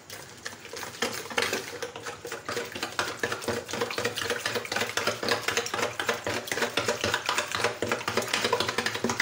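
Metal hand whisk beating eggs, sugar and milk in a mixing bowl: a fast, steady rhythm of clicks as the wires strike the bowl, with the wet sloshing of the liquid mixture.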